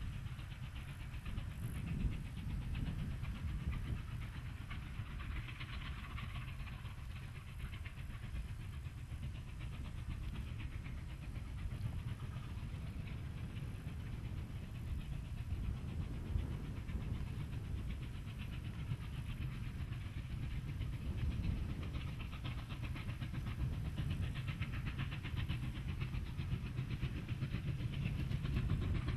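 Chinese QJ-class 2-10-2 steam locomotive working a long freight train at a distance, its exhaust beats running steadily over a low rumble and growing a little louder near the end as it draws closer.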